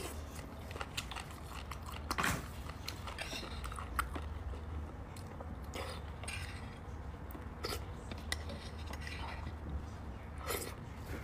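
Close-miked eating of beef bone marrow: wet chewing and mouth clicks, with a small metal spoon clicking and scraping inside a cut marrow bone as marrow is scooped out. A few sharper clicks stand out, about two seconds in, about four seconds in and near the end.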